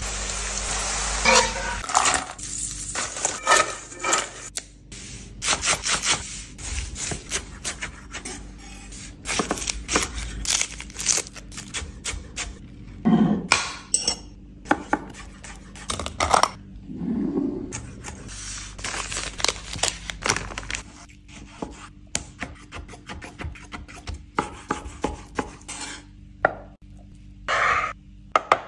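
A run of close-up kitchen sounds. It opens with the sizzle of potato slices frying in hot oil, then continues with many short clinks, knocks and scrapes of cutlery and utensils.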